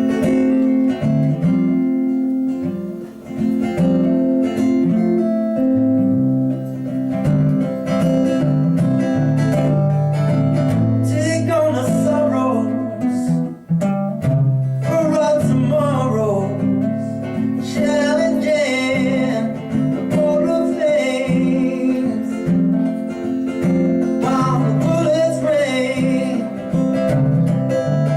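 Live band music: acoustic guitar strumming a chord progression that changes every second or two, with a lead melody that wavers in pitch coming in about eleven seconds in.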